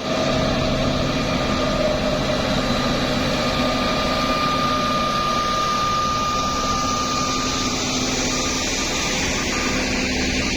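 Engine of heavy road-construction machinery running steadily, with a high whine that rises out of it for a few seconds in the middle.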